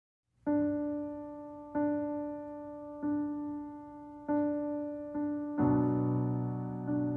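Slow solo piano music that starts about half a second in with one note struck over and over, roughly every second and a bit, each dying away. Fuller chords with low bass notes join near the end.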